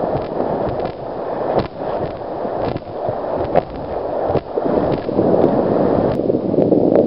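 River rapids rushing and splashing around an inflatable kayak running through whitewater. There is a steady loud wash of water, broken by a few sharp knocks.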